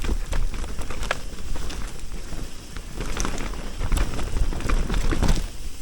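Mountain bike rolling fast down a dirt trail: tyres rumbling over dirt and ruts, with frequent sharp clicks and rattles from the bike.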